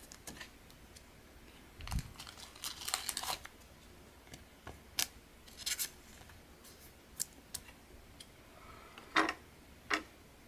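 Trading cards being slid into clear plastic card sleeves: scattered light plastic clicks and rustles, with two louder sharp clicks near the end.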